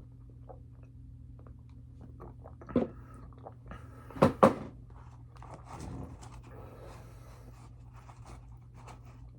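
A person chewing and eating close to the microphone, with a few sharp, loud mouth or food sounds: one about three seconds in and a quick pair just after four seconds. A steady low hum runs underneath.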